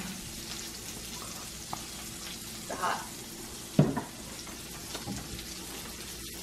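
Asparagus spears frying in a pan on a gas stove, a steady sizzling hiss. A single sharp knock about four seconds in.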